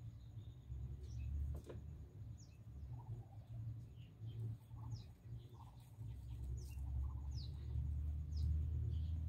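Scattered short, high, downward-sliding bird chirps with a few softer calls, over a steady low rumble that grows louder in the second half.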